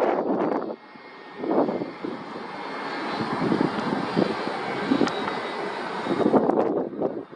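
Airplane engine noise from an aircraft at the airport: a steady rushing sound with faint high whining tones, broken by irregular louder rumbling surges about a second and a half in and again near the end.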